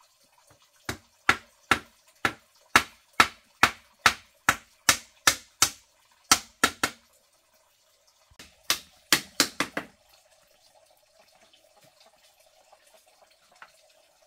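Hammering on a bamboo kennel frame: about fifteen sharp, hollow knocks at a steady two or so a second, then a short pause and a quick flurry of five more.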